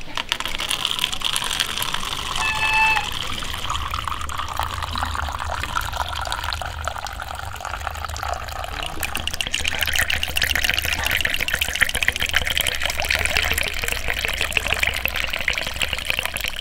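A steady stream of clear liquor pouring from a bottle into a plastic cup, splashing and fizzing as the cup fills and foams, running continuously.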